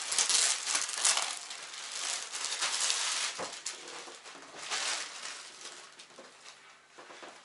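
Clear plastic packaging crinkling and rustling as children's clothes are pulled from their bags and unfolded, in dense bursts for about three seconds, then thinning to softer, scattered rustles.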